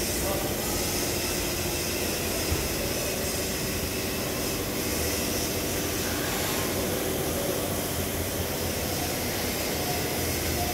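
Steady mechanical drone with a low hum, even in level throughout.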